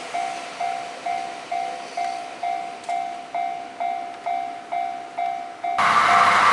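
Japanese level-crossing warning bell ringing, a little over two strokes a second, each stroke fading before the next. About six seconds in, the loud rush of a train passing close to the crossing suddenly takes over, with the bell still faintly audible.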